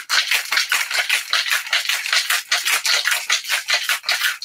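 Ice rattling hard in a metal cocktail shaker being shaken vigorously, a fast even rhythm of about five or six sharp rattles a second.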